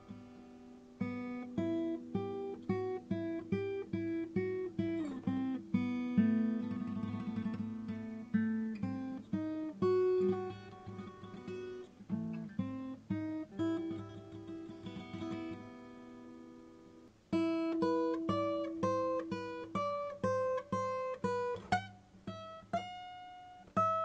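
Acoustic guitar music: a steady run of picked notes and chords, with a sliding note about five seconds in and a brief break about seventeen seconds in before the playing resumes, ending on a ringing held note.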